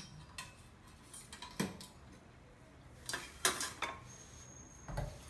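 Kitchen knives and metal utensils clattering: a handful of separate knocks and clinks, the loudest about three and a half seconds in, as one knife is put down and another is picked up.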